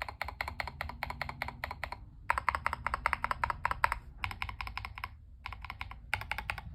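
Fast typing on a Tester 68 mechanical keyboard kit fitted with Fantasy DVA switches, which are lubed with a Krytox 205/105 mix. The keystrokes come in quick runs with short pauses between them.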